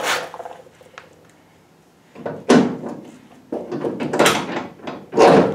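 Short bursts of scraping and clunking metal as a 1965 Ford Mustang's compressed front coil spring and suspension arm are forced into place. There are about four bursts, with a lull of about a second early on.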